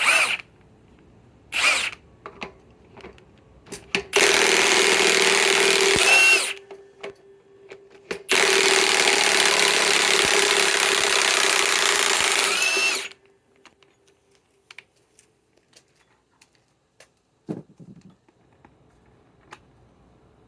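Ridgid high-torque cordless impact wrench backing out an 8-inch lag screw: two brief blips, then two long hammering runs of about two and a half and about five seconds, each ending as the trigger is released. A single knock comes later, then near quiet.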